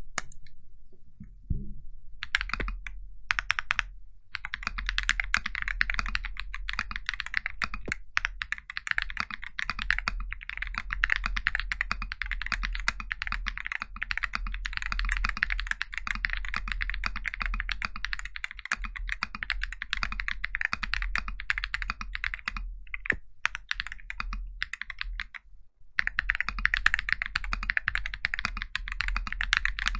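Sound test of a custom 75% mechanical keyboard in an Akko ACR Pro 75 acrylic case with Neapolitan Ice Cream tactile switches, Durock v2 stabilizers and Epomaker Rudy keycaps: fast, continuous typing, dense clacking keystrokes. The typing starts about two seconds in, pauses briefly twice, near the start and a few seconds before the end, and runs over a faint low hum.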